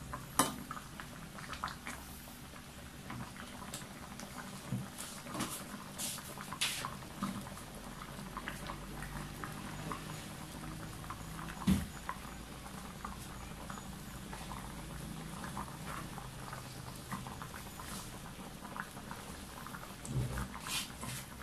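Coconut-milk chicken curry simmering in a steel wok, with small irregular bubbling pops over a low steady background. A couple of sharper clicks stand out, one just after the start and one about halfway through.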